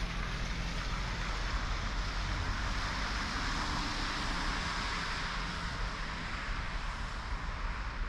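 Steady outdoor street ambience: an even hiss of distant traffic with a low wind rumble on the microphone.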